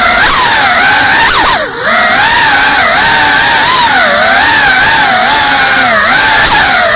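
Brushless motors and 3.5-inch propellers of a GEPRC CineLog35 cinewhoop FPV drone whining in flight, heard from its onboard camera, the pitch wavering up and down with the throttle. About a second and a half in, the throttle drops briefly and the whine dips, then climbs back.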